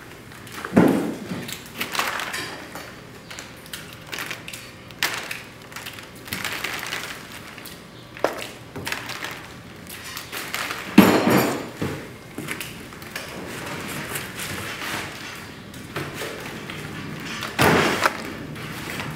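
Hammer blows on a steel chisel chipping away a plaster waste mold, with plaster crumbling off between strokes. The blows come irregularly, mostly light taps, with three much heavier strikes: about a second in, around eleven seconds in, and near the end.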